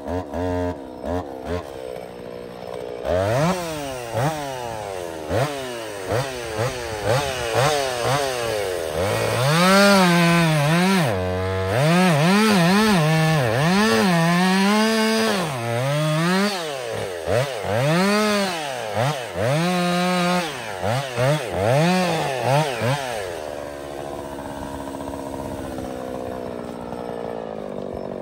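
Woods-ported Jonsered 2156 two-stroke chainsaw, revved up and down again and again as it cuts, its pitch rising and falling every second or so. Near the end it drops back to a steady idle.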